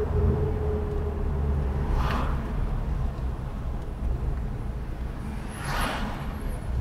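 Car driving on city streets: a steady low engine and road rumble, with a faint held tone for the first two seconds and two brief rushes of noise, about two seconds in and near the end.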